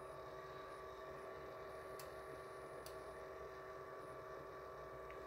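Quiet room tone: a faint steady electrical hum, with two faint ticks about two and three seconds in.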